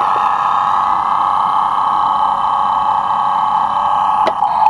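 Road Rippers Wheelie Monsters toy monster truck playing its recorded engine-running sound effect through a small built-in speaker, steady and thin-sounding, with a brief sharp click near the end.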